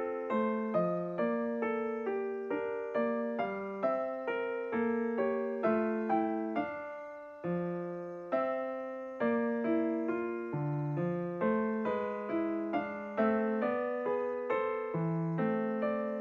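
Calm background music on piano or electric piano: a slow, repeating pattern of soft struck notes and chords, with a brief pause about seven seconds in.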